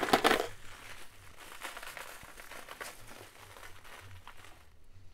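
Hands rummaging through a box of vintage costume jewelry brooches: a loud rustle at the start, then scattered lighter rustling and small clicks that die away near the end.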